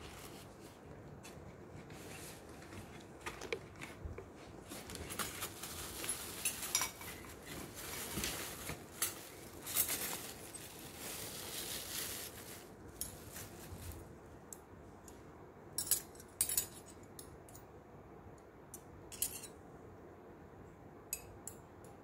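Plastic wrapping crinkling as a set of metal cutlery is unwrapped, followed by scattered sharp clinks of the spoons and forks knocking together.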